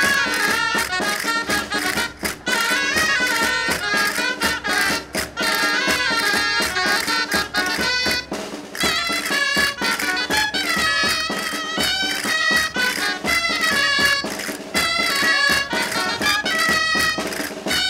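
Live Castilian folk music: a jota from Burgos played on clarinet with drum accompaniment, a lively running melody over a steady beat, with a brief break in the melody about eight and a half seconds in.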